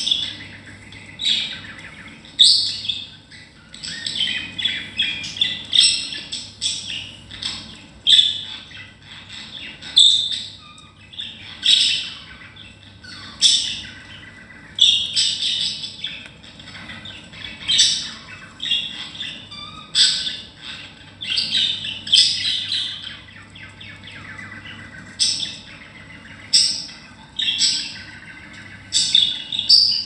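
Budgerigars chirping and squawking in short, sharp calls, one every second or two, at times in quick clusters.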